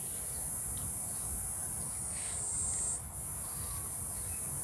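Steady high-pitched drone of insects, sliding a little lower in pitch shortly before the middle and then snapping back, over a low outdoor rumble.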